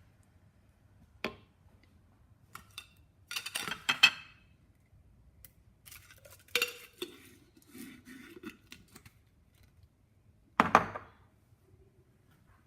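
Kitchen pots and utensils being handled: a short knock, then a louder run of clinks and clatters a few seconds in, more scattered knocks, and a last clatter near the end.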